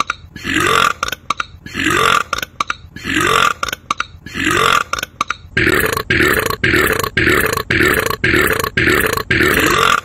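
A man belching loudly over and over at an even pace, about one burp a second, speeding up to about two a second from about halfway through.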